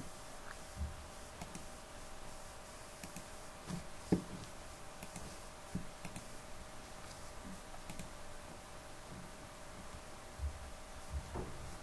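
Irregular small plastic clicks and light knocks as the snap-fit front bezel of an LED TV is prised loose by hand, the loudest knock about four seconds in.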